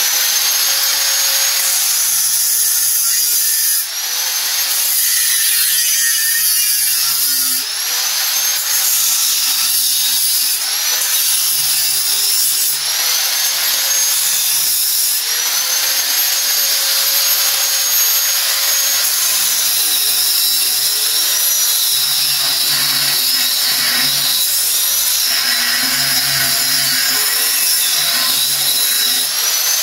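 Angle grinder with a cutting disc running continuously as it cuts through a piece of scrap. Its whine sags in pitch each time the disc is pressed into the cut and climbs back as the pressure eases, many times over.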